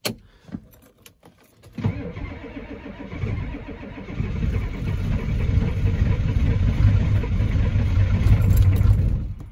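1993 Ford F-250's 7.3 IDI V8 diesel being cranked on a cold start after sitting for weeks, on a battery expected to be weak. A few clicks come first, then the starter cranks it from about two seconds in, growing louder as it tries to catch, and it stops abruptly near the end.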